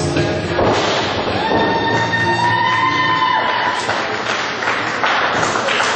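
Rock entrance music cutting off in the first second, then scattered thuds on a wrestling ring over crowd noise. A single long, high held tone rises slightly at its start and sounds for about two seconds, beginning around a second and a half in.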